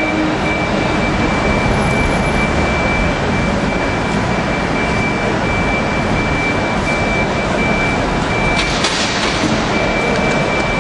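A high, steady electronic beeping from a platform passenger-and-luggage buggy moving nearby, over the running noise of a Siemens Class 350 Desiro electric unit pulling out of the station. The tail of the train's horn fades in the first second, and a short hiss comes about nine seconds in.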